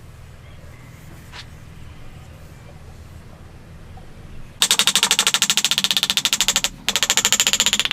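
A loud, rapid mechanical rattle of sharp clicks that starts a little past halfway, stops for a moment, then resumes, over a low steady hum.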